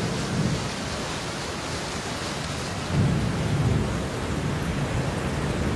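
Steady heavy rain with thunder rumbling, a louder roll of thunder swelling about halfway through.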